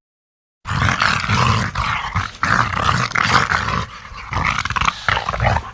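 Gorilla sound effect: rough, growling animal vocalizations with a pulsing low rumble, starting suddenly after a moment of silence and continuing without pause apart from a brief dip near the middle.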